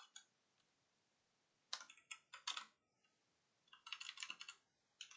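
Typing on a computer keyboard: two short runs of quick keystrokes, one about two seconds in and another about four seconds in.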